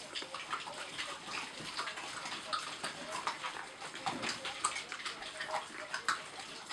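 Greyhound puppies chewing and gnawing on raw meat: a steady, irregular run of wet smacking and crunching clicks from several mouths at once.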